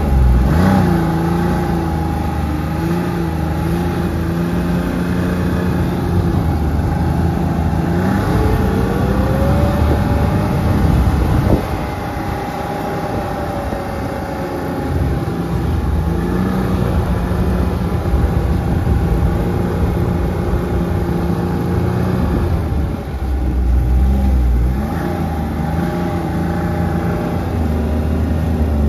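Snowmobile engine running steadily under way along a snow trail. Its pitch rises as it speeds up about eight to ten seconds in, drops back a moment later, then runs steady again.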